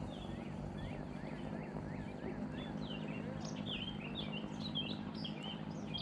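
Songbirds singing: a quick run of short repeated slurred notes for about two seconds, then a fast jumbled warbling song. Under it runs a steady low rumble.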